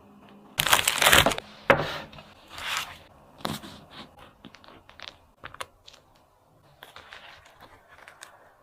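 Kitchen handling noises: several bursts of crinkling and tearing, with a sharp click a little under two seconds in, then fainter scattered rustles and ticks.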